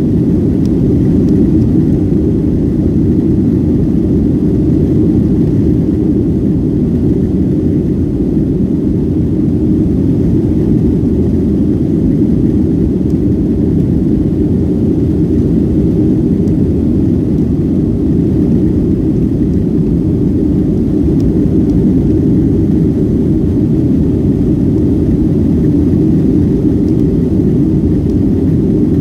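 Boeing 757-200 passenger-cabin noise during the climb after take-off: the twin jet engines and rushing air heard from inside as a steady deep rumble that holds level throughout.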